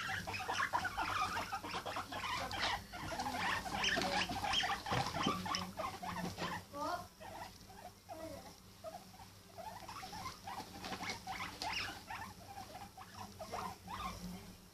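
Guinea pig vocalising with a fast, busy string of short squeaks and chirps, mixed with small clicks and rustles.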